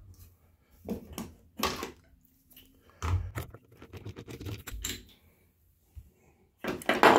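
Scattered clicks and light knocks of a Phillips screwdriver backing the screw out of a shower valve's clear knob handle and the handle being worked off the valve stem, with a louder knock near the end.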